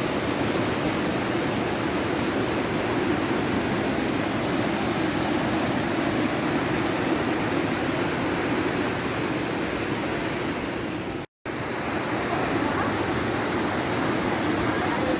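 Waterfall pouring: a steady, loud rush of falling water. It cuts out for a split second about eleven seconds in.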